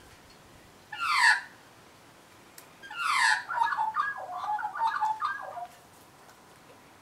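Australian magpie calls: a sharp squawk sliding down in pitch about a second in, and another at about three seconds that runs straight on into a couple of seconds of warbling.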